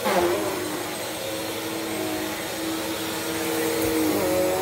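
Bissell CleanView Swivel Pet upright vacuum cleaner running over a rug, a steady motor drone with a held tone that dips briefly at the start.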